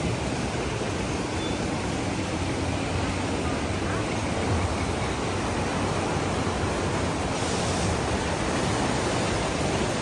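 Whitewater churning through the man-made rapids channel of a river-raft ride, a steady rushing noise.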